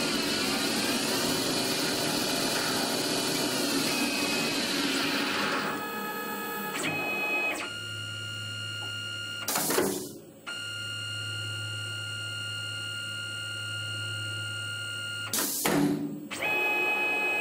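CNC lathe running an automatic turning cycle on 440C stainless steel: spindle whine and cutting noise, its pitch sweeping down and back up during the first few seconds of cutting, then a steadier whine with a low hum. Two sharp knocks break in, one near the middle and one near the end.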